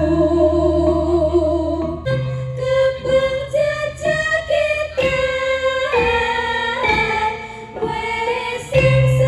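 Music for a traditional Javanese dance: a sung melody on long held notes, with sharp struck beats about two, five, six and seven seconds in.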